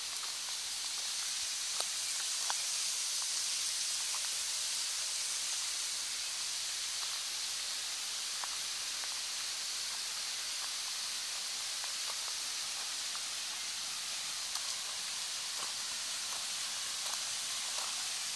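Steady high-pitched outdoor hiss with a few faint scattered ticks.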